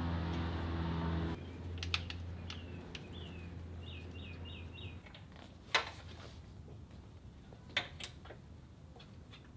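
Quiet workshop sounds of hands working in a car's engine bay: a few sharp clicks and knocks from handling parts and tools. Underneath is a low steady hum that drops about a second in and dies away midway, and a quick run of short, high chirps.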